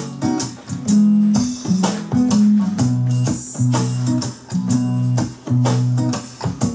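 A song with guitar and a steady beat, played back from cassette on a NAD 6155 cassette deck: a test recording made and played back with Dolby C noise reduction.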